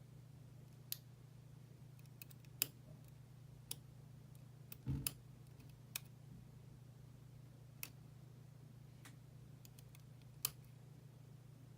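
Scattered small metallic clicks and ticks of tools against a pin-tumbler lock core and its tiny pins and springs as the lock is taken apart, with a duller knock about five seconds in. A faint low hum runs underneath.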